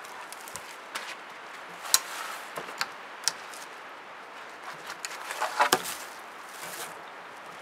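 Cut birch sticks and poles knocking and clattering as they are handled and laid across a log bed frame, with rustling between the knocks. There is a sharp knock about two seconds in, and the loudest cluster of knocks comes about five and a half seconds in.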